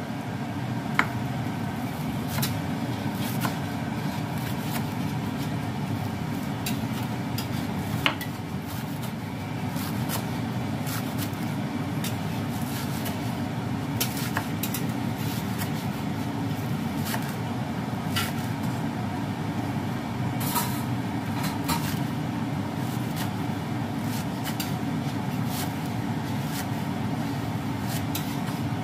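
Kitchen knife chopping spring onions on a wooden cutting board: short, irregular taps of the blade on the board. Under it runs a steady low rumble.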